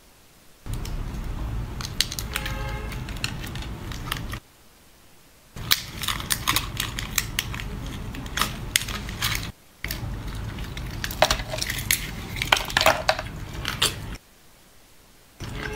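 Close-miked mukbang eating sounds: a mouth chewing and smacking on seafood, with many sharp wet clicks and crunches. The sound is broken by three brief silences.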